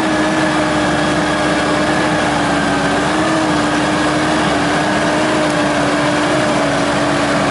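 Winch on a Mitsubishi Pajero running steadily with a constant whine, slowly drawing the 4x4 out of a mud rut.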